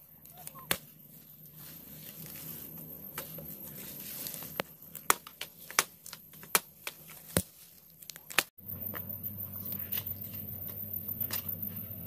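A small hand hoe chopping into grassy soil: sharp, irregular strikes, several in a row, over quiet ground. About two-thirds of the way through, the sound cuts off abruptly to a steadier low outdoor background with a few light ticks.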